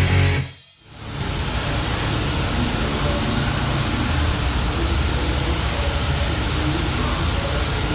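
Background music fades out, then, from about a second in, a paint spray gun hisses steadily as it lays a light mist coat of sealer.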